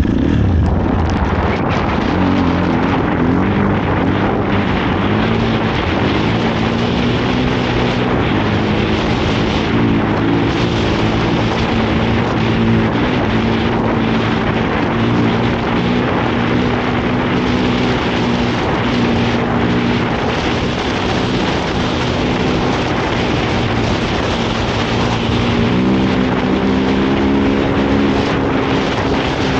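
KTM 450 SX-F snowbike's single-cylinder four-stroke engine running under load. Its pitch climbs in the first couple of seconds, holds steady through the middle, and rises again near the end.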